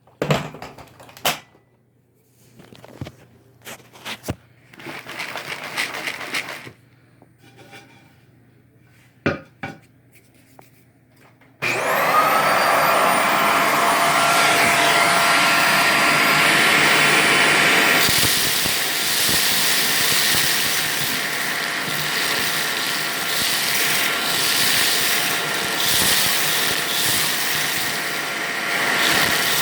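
Clicks and rustling from handling, then about twelve seconds in a bagless cyclonic vacuum cleaner is switched on, its motor whine rising quickly to a steady pitch and running loud. About six seconds later the sound turns noisier, with more hiss, while it keeps running with its dust bin nearly full.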